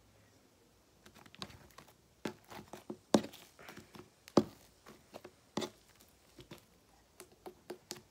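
Fluffy slime being stretched and squished by hand against a hard tabletop, giving irregular wet clicks and pops. It starts about a second in, and the two loudest pops come about three and four and a half seconds in.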